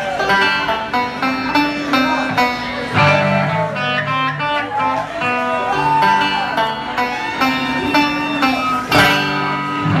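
Live band playing an up-tempo country tune, a banjo picking quick runs of notes over guitar.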